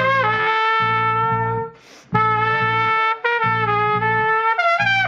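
Trumpet playing long held notes, each entered with a short slide down in pitch, with a brief break for breath about two seconds in. A bass plays short repeated low notes underneath.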